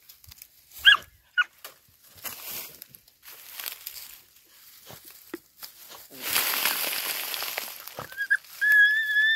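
Young dogs digging at a hole in dry soil and leaf litter: scratching and rustling, two short yelps about a second in, and long high-pitched whimpering whines from near the end.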